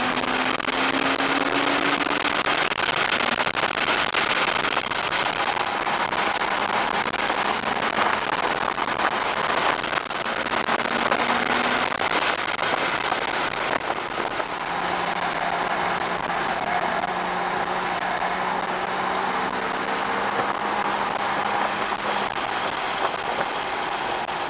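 Inside the cabin of a 2007 Porsche Cayman S at speed on track: a steady, loud rush of wind and road noise, with the 3.4-litre flat-six's engine note faintly beneath it. The engine pitch rises gently in the first few seconds and holds steady later on.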